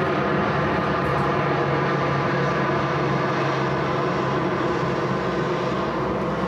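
C-130 transport plane's four turboprop engines droning overhead, a steady, even hum.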